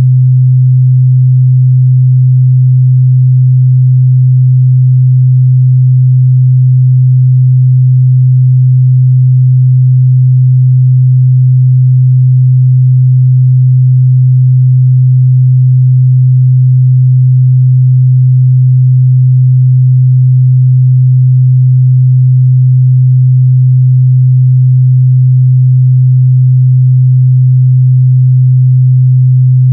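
A loud, steady 128 Hz sine-wave test tone: one pure, unchanging low hum.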